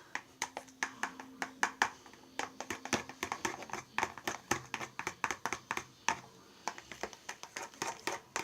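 A thick mixture of shampoo and liquid hand soap being stirred in a container: a rapid, irregular run of clicks and taps.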